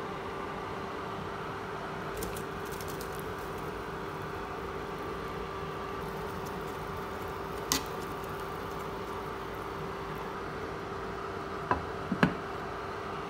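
Steady hum and hiss from an induction cooktop with a pan of water and broccoli heating on it. There is a sharp clink a little past halfway and two more near the end as the glass pan lid is handled.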